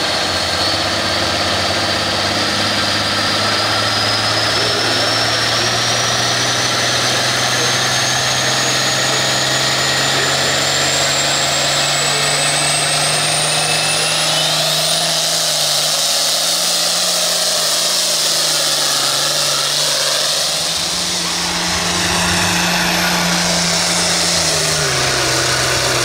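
International Harvester pulling tractor's diesel engine revving hard while hooked to the sled. A high turbo whistle climbs steadily for about fifteen seconds as it builds boost, then the engine carries on under load as the tractor pulls away down the track.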